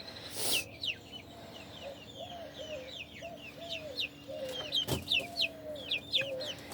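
Backyard hens clucking, a run of low, soft clucks at about two a second with short higher calls over them, as they come out of the coop. A brief noise near the start and a single sharp knock about five seconds in.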